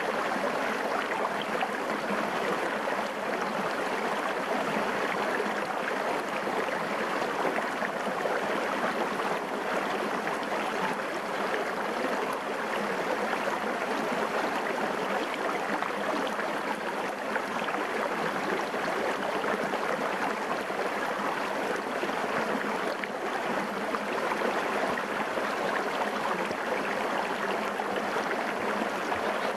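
Small shallow stream running over and around rocks, a steady babble of flowing water.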